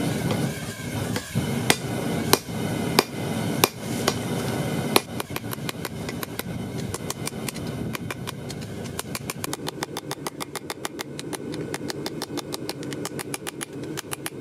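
Hand hammer striking glowing 5160 high-carbon steel on an anvil to forge a knife blade. At first the blows come singly, about two-thirds of a second apart, over a steady low rumble. About five seconds in, the rumble drops away and the hammering turns quick and even, about five blows a second.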